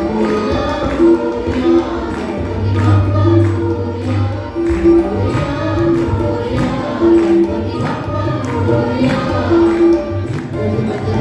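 Mixed group of men and women singing a song together, backed by keyboard and hand drums keeping a steady beat.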